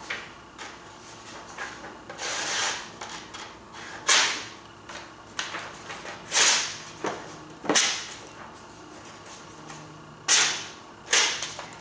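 A Cold Steel Recon 1's AUS8 knife blade being drawn through sheets of printer paper, about six short tearing slices with paper rustling between them. The edge is worn dull after 175 cardboard cuts, so in the worn spots it rips the paper rather than slicing it cleanly.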